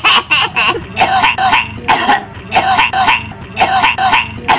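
A woman's cackling witch laugh, performed as a horror sound effect: a long run of short, even laugh syllables, about three to four a second.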